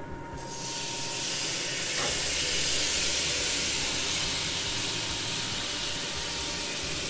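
Teriyaki marinade poured from a glass baking dish onto mahi fillets on a hot grill, sizzling and hissing loudly as it hits the hot grates. The sizzle starts about half a second in and holds steady.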